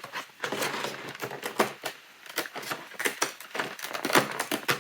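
Irregular clicks and crinkles of small plastic toy parts and their packaging being handled and unwrapped by hand.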